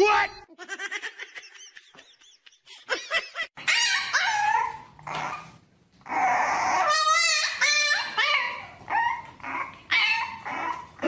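French bulldog puppy whining and yipping in a run of short high-pitched cries, with a longer wavering cry about seven seconds in.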